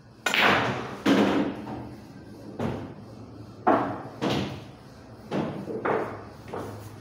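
A hard-hit pool shot: the cue ball cracking into Belgian-made resin balls, then the balls banging off the cushions and each other, a run of about eight sharp knocks, each with a short ring after it. The first two knocks are the loudest, and they fade in strength over the seconds that follow.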